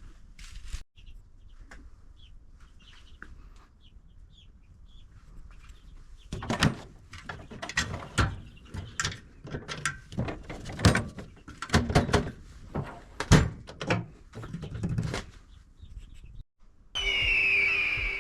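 Craftsman S2000 steel tool chest being handled: a run of clunks and sliding thuds from its drawers and fittings, one or two a second. A brief high tone sounds near the end.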